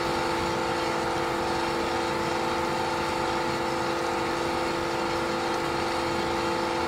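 Plastic granule (gitti) extruder running steadily as waste plastic film is fed into its barrel: an even machine hum holding several fixed tones.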